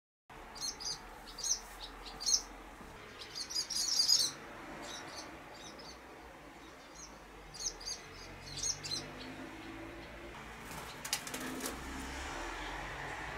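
Barn swallows twittering in quick clusters of short, high chirps, with a brief flurry of wing flaps about eleven seconds in.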